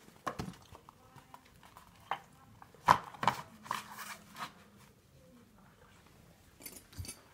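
A few scattered soft knocks and rustles, as of things being handled, the loudest about three seconds in.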